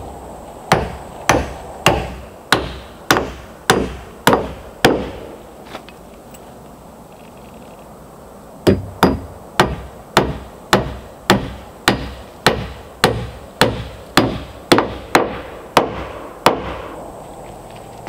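A claw hammer drives nails into a wooden threshold board with steady blows, just under two a second. There are about eight blows, a pause of a few seconds, then a longer run of about fifteen.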